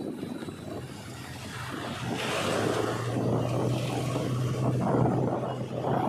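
Steady diesel engine drone of a JCB 3DX backhoe loader travelling along a road, with tyre and wind noise; it grows louder about two seconds in.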